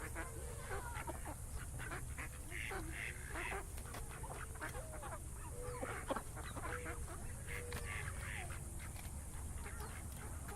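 A flock of ducks quacking and calling over one another, with scattered short clicks and a steady low rumble underneath.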